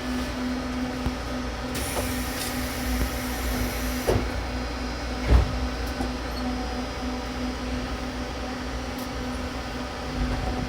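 Cabin noise of a JR East 255 series train under way: a steady rumble with a constant hum, broken by a few short knocks, the sharpest about five seconds in.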